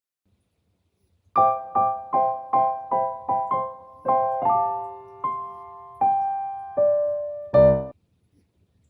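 A short keyboard tune of about a dozen separate plucked-sounding notes. It starts after about a second and a half of silence and ends on a fuller, louder note near the end.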